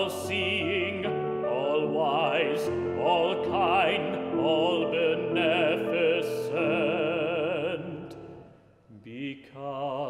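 Male classical singer singing in operatic style with a wide vibrato over grand piano accompaniment. The singing falls away about eight seconds in, and a short sung phrase comes near the end.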